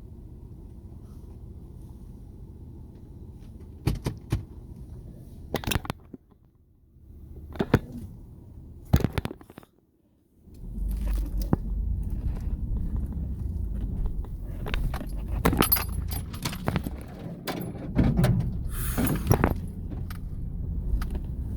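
Vehicle cabin noise: a low engine hum with scattered clicks and knocks, a brief drop to near silence about ten seconds in, then a louder low rumble with rattling and jangling, like keys swinging in the ignition, as the vehicle drives over rough ground.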